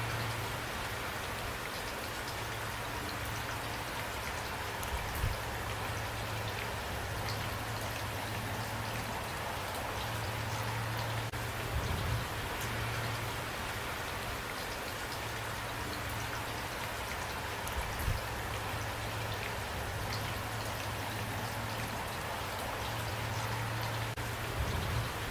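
Steady rain falling and pattering on a surface, with a few brief louder thuds about every six seconds.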